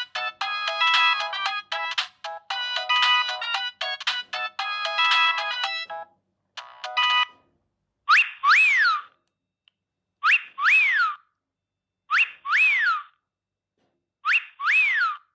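Siemens C65 mobile phone's stock ringtones playing through its loudspeaker. First a melody of several notes at once, its phrase repeating about every two seconds, ends about six seconds in. A different tone follows: pairs of whistling chirps, each rising then falling in pitch, repeated about every two seconds, four times.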